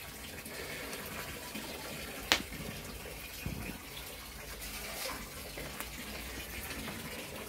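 Wood fire burning in the firebox under a cauldron, with one sharp crackle a little over two seconds in and a few fainter pops, over a steady rushing noise.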